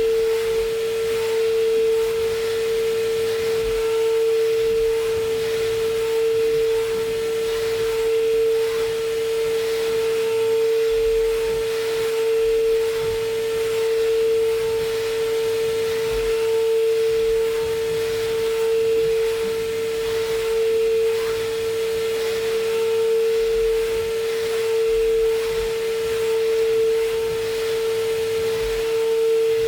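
Brother SPEEDIO S500Xd1-5AX machining center milling an A5052 aluminium impeller at high spindle speed: a steady single-pitched cutting whine over an even hiss of cutting noise.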